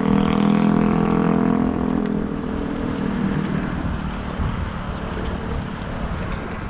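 Steady engine hum from a motor vehicle, fading away over the first three seconds, over the rumble of road and wind noise picked up by a camera mounted on a moving bicycle.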